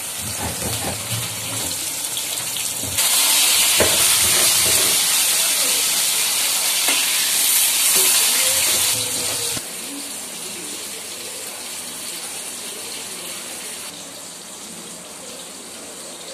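Rohu fish pieces sizzling in hot oil in an aluminium kadai, with a few knocks and scrapes of a spatula turning them. The sizzle grows louder about three seconds in and falls back near ten seconds.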